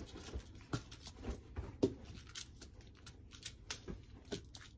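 Scattered soft thumps and rustles of an Abyssinian cat leaping and landing on bedding while chasing a feather wand toy.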